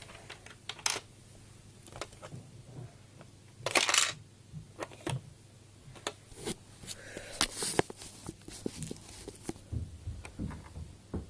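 Plastic Lego pieces clicking, knocking and rattling as a 1p coin is fed into a Lego gumball machine and its lever is worked, with a short louder rattle about four seconds in.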